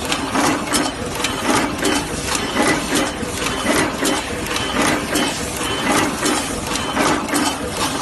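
EW-21C automatic two-wire crimping machine running: a continuous mechanical clatter with sharp clacks repeating about twice a second as it cycles through wires.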